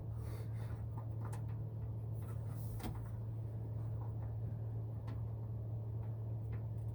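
Scattered light clicks and knocks of tools and hardware being handled during work on a bolted mount, over a steady low hum.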